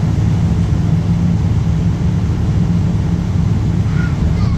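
Interior sound of a Volvo B10BLE single-deck bus with a ZF Ecomat automatic gearbox: the rear-mounted engine and driveline drone steadily and loudly inside the saloon.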